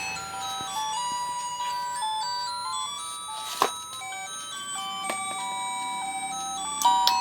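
Tinny electronic melody from a children's sound book's sound chip, playing a tune of plain beeping notes. A sharp click sounds about three and a half seconds in, and another near the end.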